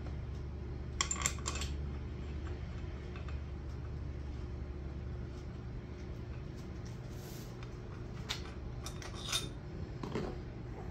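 Light metallic clinks of steel head bolts being handled and dipped in oil: a quick cluster about a second in and a few more near the end, over a steady low hum.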